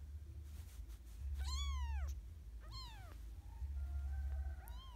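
Very young kitten mewing three times, short high mews that each rise and then fall in pitch.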